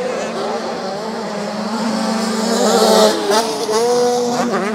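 Several 85cc two-stroke motocross bikes revving hard as they race up a climb to a jump, engine notes rising and falling as riders work the throttle.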